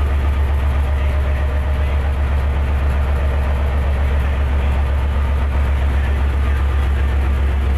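Diesel engine of a GMCU-15 diesel-electric locomotive running close by: a loud, steady, deep throb.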